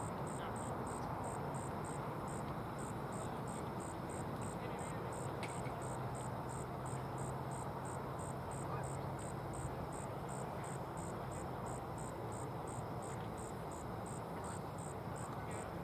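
An insect chirping steadily in the grass, a high, very regular chirp about three times a second, over the general hum of the outdoor field.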